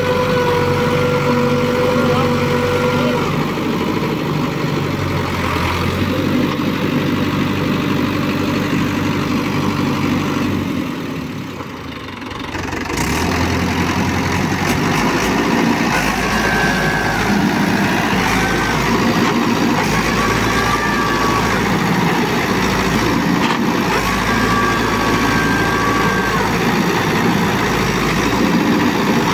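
Mahindra 475 DI XP Plus tractor's four-cylinder diesel engine running under load while the tractor is stuck in deep mud. The engine sound drops away briefly a little before halfway, then picks up again and runs steadily.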